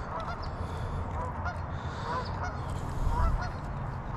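Geese honking, a run of short calls a few times each second, over a steady low rumble.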